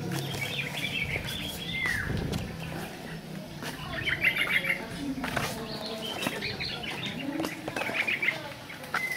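Small birds chirping in quick twittering clusters, four or five times, with a short falling call twice.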